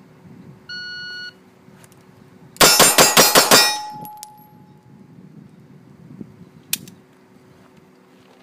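A shot timer beeps once, then a fast string of about eight gunshots follows in just over a second, striking steel targets that clang and ring on briefly afterwards.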